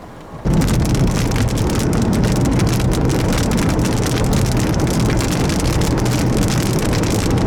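Loud, dense clatter of heavy precipitation pounding a vehicle's roof and body: countless small impacts over a low rumble. It starts abruptly about half a second in and holds steady.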